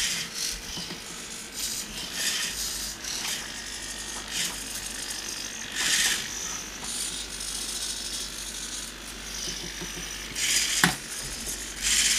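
A desktop robot arm's high-torque metal-geared servos whirring in a string of short bursts, one joint move after another, as the arm plays back a recorded sequence of movements. A sharp click a little before the end.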